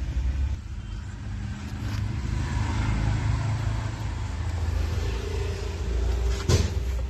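A motor vehicle engine running steadily with a low rumble. A sharp knock sounds about six and a half seconds in.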